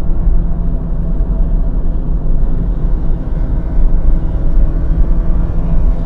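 Mazda MX-5 Miata's four-cylinder engine running under load at track speed, heard from the open cockpit along with wind and road noise, a steady low-pitched drone. The engine is down on power in the heat, which the driver feels as the car really struggling.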